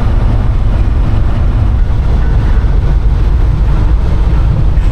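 1965 GMC pickup on the move: a loud, steady low rumble of engine and road noise.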